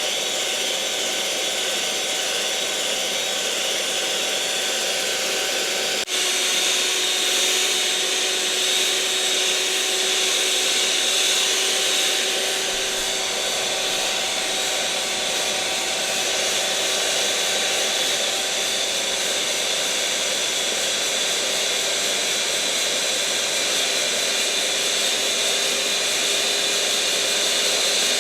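Electric mixer motor running steadily with a whirring hum. About six seconds in there is a short click, after which the hum drops a little in pitch and gets slightly louder.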